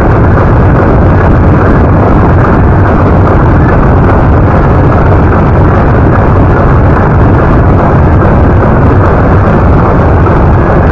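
Loud, steady, unbroken rushing noise, heaviest in the low end.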